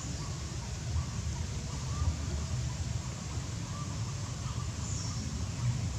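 Outdoor background noise: a steady low rumble, with a faint high chirp about five seconds in.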